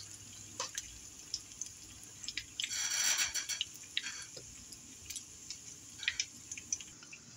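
Breaded fish fillet frying in hot oil in a pan: a steady sizzle with scattered pops and crackles, and one louder stretch of sizzling about three seconds in.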